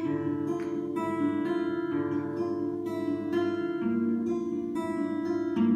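Acoustic guitar strummed and picked in an instrumental passage between sung verses, its chords changing about once a second.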